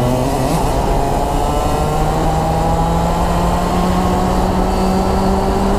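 Racing kart's two-stroke engine at full throttle: the revs dip briefly about half a second in, then climb steadily as the kart accelerates.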